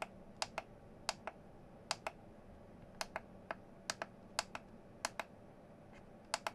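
Front-panel push buttons of a Wemon T31 soldering station clicking as they are pressed and released: about a dozen short, sharp clicks, mostly in quick pairs, while someone steps through the menu.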